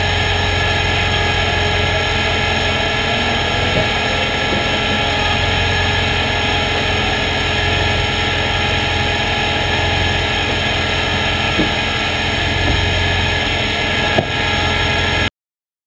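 Toyota 86 race car's flat-four boxer engine idling steadily, heard from inside the cockpit, with a few light clicks. The sound cuts off abruptly near the end.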